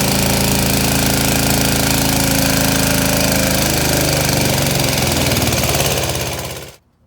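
Chinese 196cc single-cylinder diesel generator engine (Model 168F) running steadily under a load test at about 20 amps, with carbon buildup in its combustion chamber and injector. The sound fades away near the end and cuts off.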